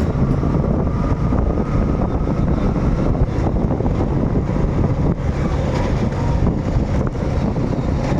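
Motorcycle running steadily at riding speed, with wind rushing over the microphone.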